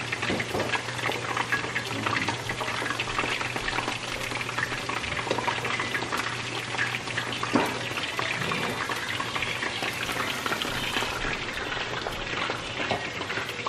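Rose tteokbokki bubbling in its thick red sauce in a sauté pan on the stove, a steady crackle of small popping bubbles. A low steady hum runs underneath.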